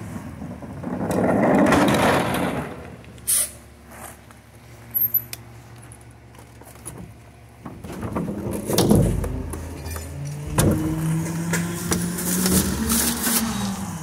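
Rear-loader garbage truck's diesel engine running, with a rush of noise about two seconds in and two heavy thumps past the middle as plastic wheeled trash carts are handled. Near the end the engine speeds up, its pitch rising.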